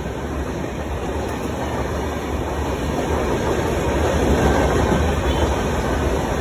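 An express train's LHB passenger coaches roll past at speed: a steady rumble with wheel and rail clatter. It grows louder through the middle as a second train comes in on the neighbouring track.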